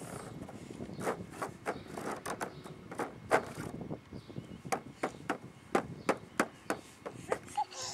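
Irregular light taps and knocks of a baby's hands patting and slapping the top of a woven wicker box, starting about a second in and running through most of the clip.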